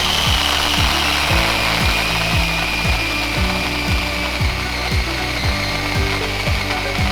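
Electric pole-mounted power tool's motor running with a steady high whine, under background music with a regular low beat about twice a second.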